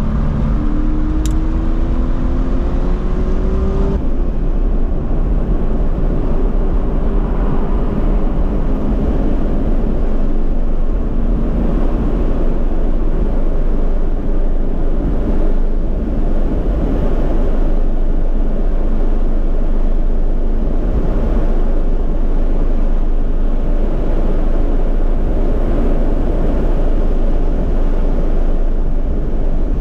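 Toyota GT86's flat-four engine pulling hard, its pitch climbing over the first few seconds, heard from inside the cabin. After that a steady loud rush of wind and road noise at track speed, with the engine faint underneath.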